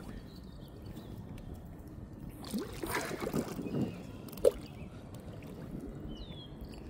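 Water splashing for a second or so about halfway through, then a short plop: a large hooked carp thrashing in the shallows at the bank, already tired out from the fight.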